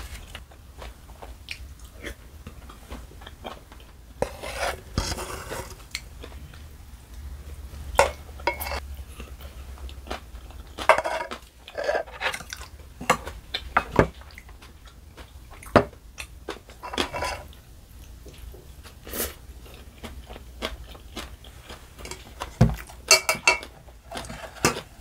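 Close-up mukbang eating sounds: chewing and slurping mouthfuls of tuna bibimbap, with wooden chopsticks and a wooden spoon clicking and scraping against a metal bowl.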